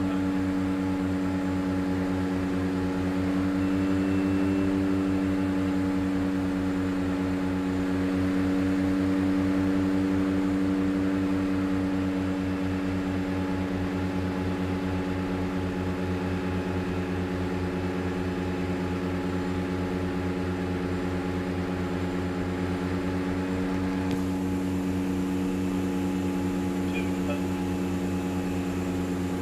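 Twin Pratt & Whitney PT6A turboprops and propellers of a DHC-6-300 Twin Otter droning steadily, heard inside the cockpit on final approach: a steady hum built of several strong low tones. The drone eases slightly about twelve seconds in.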